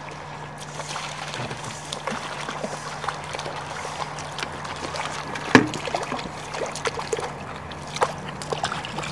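Water sloshing and splashing, with scattered clicks and knocks. The loudest is a sharp splash or knock about five and a half seconds in. A steady low hum runs underneath.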